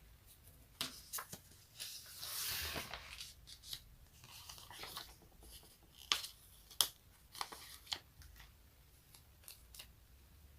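Sticky surfaces being peeled apart at close range: crackling, tacky peels broken by sharp snaps. A longer rasping peel comes about two seconds in, and the loudest snaps come around six to seven seconds in.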